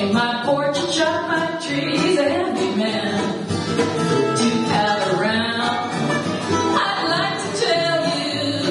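Live acoustic string band playing a country song: mandolin, upright bass and acoustic guitars, with a woman singing.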